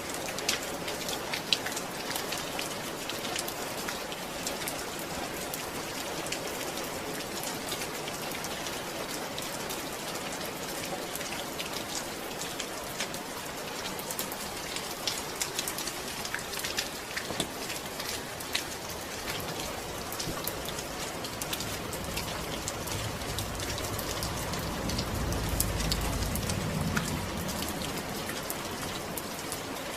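Steady rain falling, with many individual drops pattering. A low rumble swells and fades in the second half.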